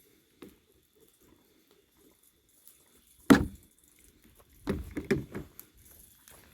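A single sharp knock about halfway through, followed a second later by a quick run of several knocks and clatter, like tools or plastic pieces being handled and set down.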